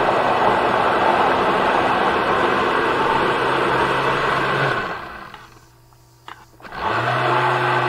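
Countertop blender motor running as it purees thick squash soup. About five seconds in it is switched off and winds down to near quiet, with a click or two, then it is switched back on about two seconds later and runs steadily.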